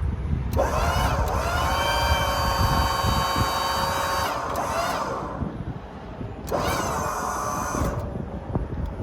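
Liftmoore 5,000 lb service-truck crane's motor whining as it powers the crane: the pitch rises as it spins up about half a second in, holds steady, then falls as it stops around five seconds in. A second, shorter run starts about six and a half seconds in and ends near eight seconds.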